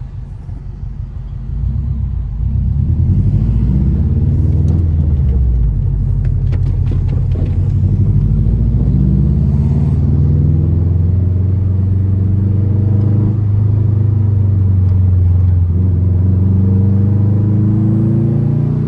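2004 Subaru WRX's turbocharged EJ flat-four with an Invidia exhaust, rumbling and revving as it pulls through the gears. Its pitch climbs and drops several times at the shifts, getting louder about two seconds in. There are a few sharp clicks in the middle.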